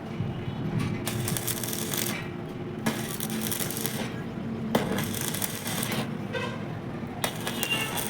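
Short bursts of arc-welding crackle, three of them about a second each, as joints of a diamond-pattern steel grill are tacked, with sharp metal clinks in between.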